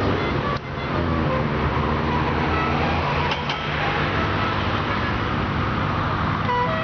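Engine of a 1980s Japanese car with a loud aftermarket muffler, running and revving up about half a second in. Music plays along with it.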